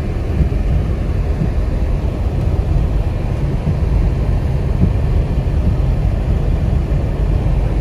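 Steady low rumble of a moving vehicle, heard from inside the cabin.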